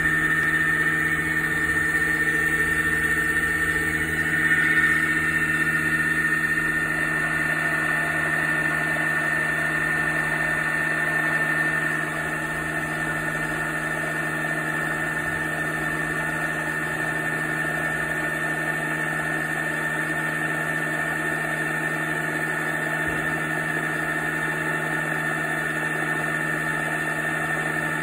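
Emco Unimat PC mini lathe running at a steady speed, its motor and drive giving a steady whine, while it turns a brass rod under a cut. The sound drops a little in level about twelve seconds in.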